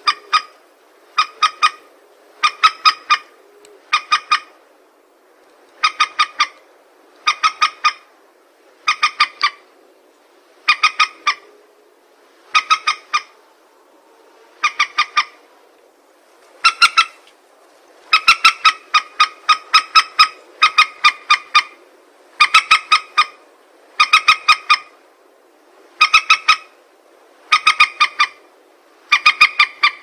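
Recorded lure call of a rice-field rail, played to draw birds to a net: short bursts of three or four rapid, pitched notes, repeated about every second and a half, coming closer together and louder in the second half.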